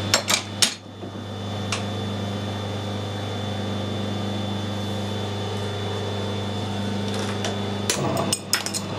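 Metal lathe humming steadily, with a few sharp metal clinks in the first second. Near the end a cluster of clicks comes as the spindle is engaged and the cast iron brake drum on its taper mandrel starts turning.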